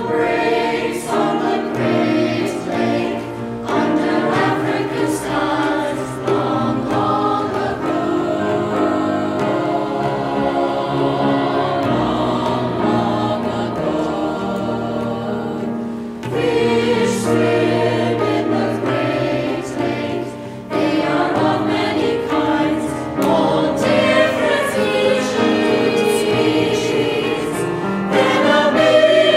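A choir singing a song in English, with lines such as "Dawn breaks on the great lake" and "Then a million years pass by", with short breaks between phrases.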